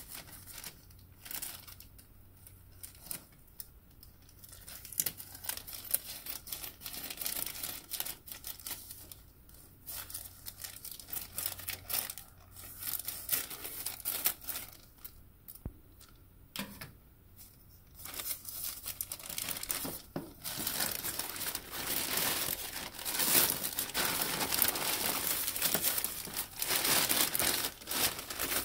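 Thin plastic mailer bag crinkling as it is handled and cut into with scissors, in scattered bursts at first. From a little past halfway it turns into steady, louder tearing and rustling as the plastic is ripped and pulled open.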